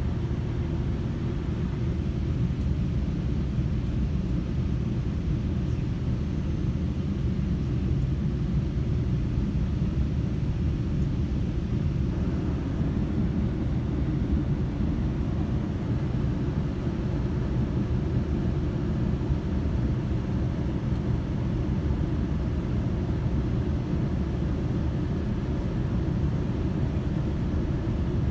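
Steady low rumble of a GO Transit commuter train coach running at speed, heard from inside the passenger cabin.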